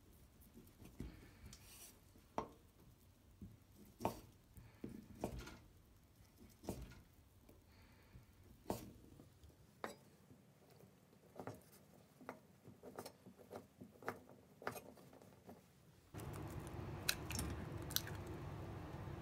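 Kitchen knife cutting cooked pepper chicken into cubes on a paulownia-wood cutting board: irregular single knocks of the blade on the board, roughly one a second. Near the end a steady louder background comes in, and an egg is cracked on the rim of a stainless steel bowl with two sharp clicks.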